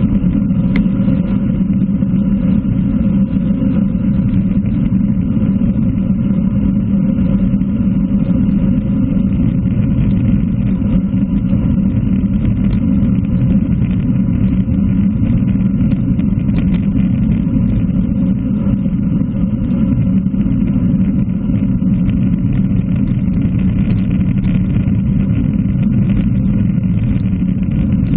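Steady wind rumble on a bicycle-mounted camera's microphone at about 45 km/h, with road bicycle tyres running on wet tarmac.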